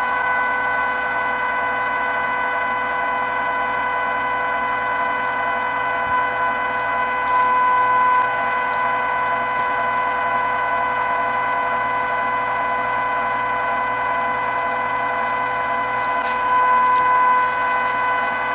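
Electric meat grinder's motor running steadily with a high whine while it pushes ground chicken through the stuffing tube into sausage casing.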